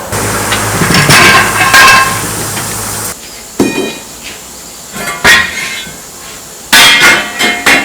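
Hammer blows on steel, each strike ringing on with a clear metallic tone, about half a dozen blows spread unevenly; a steady low hum runs under the first three seconds and stops.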